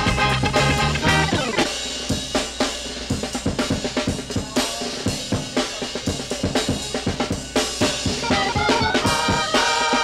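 Drum break in a late-1960s funk/soul record. About a second in, the bass and the rest of the band drop out, leaving the drum kit alone on snare, kick drum and rimshots. The other instruments come back in near the end.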